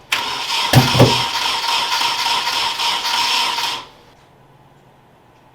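Nissan KA24DE 2.4 L inline-four being cranked by its starter motor for a little under four seconds, with two loud thumps about a second in, then the cranking stops. The engine does not catch; the owner suspects the distributor ignition timing is off.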